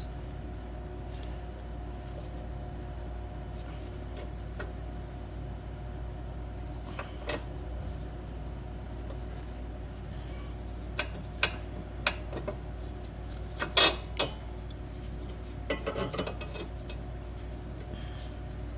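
Steady hum of an electric fan, with scattered light metallic clinks and knocks of tools and suspension hardware being handled; the sharpest knock comes about three quarters of the way through.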